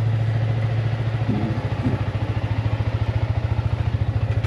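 Yamaha MT-15 motorcycle with an aftermarket Akrapovic exhaust idling steadily, a low, evenly pulsing exhaust beat.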